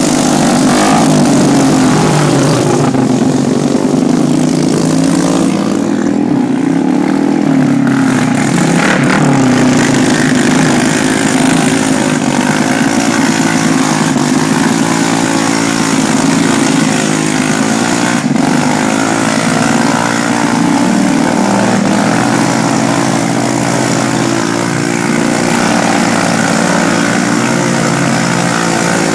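Honda ATC three-wheeler engine running continuously, its pitch rising and falling with the throttle.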